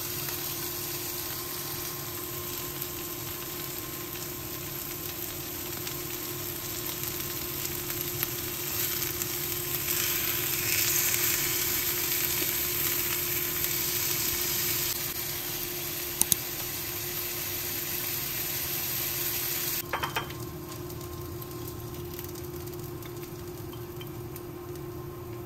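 Salmon steaks sizzling in oil in a nonstick frying pan, a steady hiss that grows louder in the middle and drops off sharply about twenty seconds in. Metal tongs knock against the pan a few times, making short sharp clicks.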